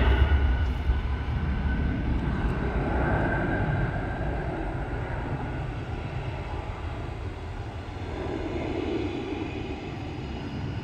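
Spirit Airlines Airbus A320neo's jet engines at takeoff power, heard from the runway side: a broad rumble with a faint whine that fades gradually over several seconds as the plane departs.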